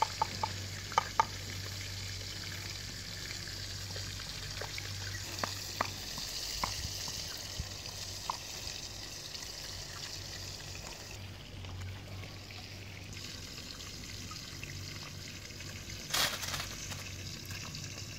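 Fish frying in oil in an iron wok over a wood fire: a steady sizzle, with a few sharp taps in the first seconds and a brief louder rustle near the end.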